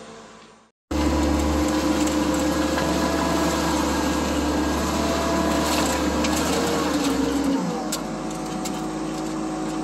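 Skid steer's engine running steadily at working speed, heard from the operator's seat. About three-quarters of the way through, the low drone drops out and the engine settles to a slightly quieter, lower note.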